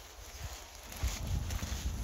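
Footsteps crunching on gravel and dirt at a walking pace, with a heavier low rumble coming in about a second in.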